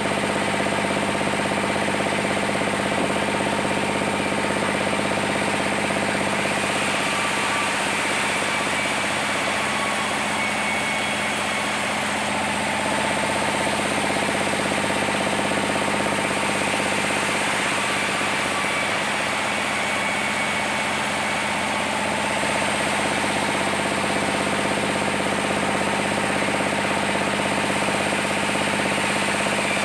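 Sawmill machinery running steadily: a constant mechanical drone with a steady hum.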